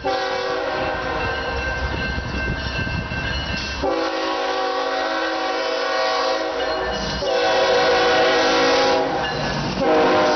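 Union Pacific diesel freight locomotive sounding its air horn in a series of long blasts, the chord strongest in three blasts over the second half, as it approaches and passes a road crossing. Under the horn is the low rumble of the locomotive and train.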